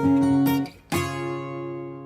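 Background music: acoustic guitar strumming chords. A last chord about a second in is left ringing and slowly fades, as at the end of a track.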